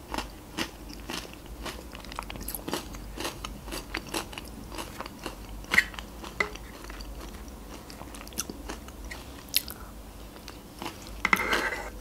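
Close-miked mouth sounds of eating yogurt off a spoon: irregular wet clicks and lip smacks. Near the end a short scraping as the spoon scoops in the plastic cup.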